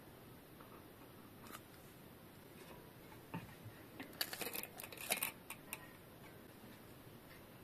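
A brief flurry of small sharp clicks and rattles, about three to six seconds in, from hand tools and bicycle hub parts being handled during a front hub service; otherwise quiet.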